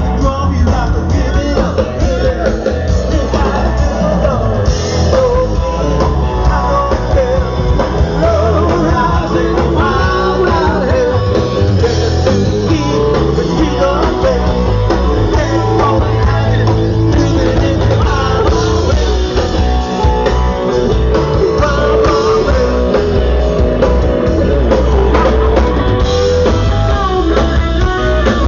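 A rock band playing: guitar, bass and drums with a singing voice.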